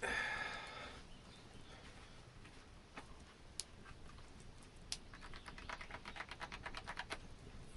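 Hand-sewing with gut sinew: a short scratchy rasp at the start, a few scattered clicks, then a quick run of rasping ticks, about ten a second, near the end, as the sinew is drawn through a stitch hole.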